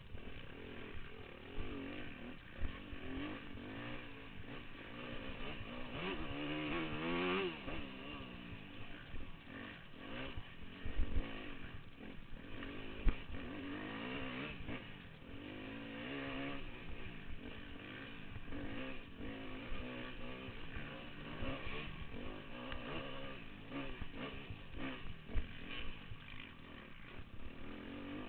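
Dirt bike engine under the rider's throttle, its pitch rising and falling with the throttle and climbing strongly about a quarter of the way in. A couple of sharp knocks sound around the middle.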